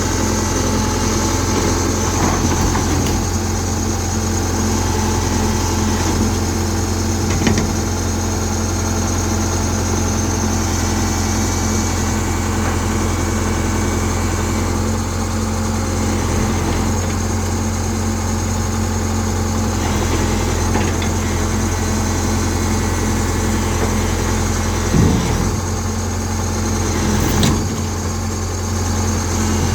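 Tata Hitachi excavator's diesel engine running steadily with a constant low drone, with a few brief knocks over it.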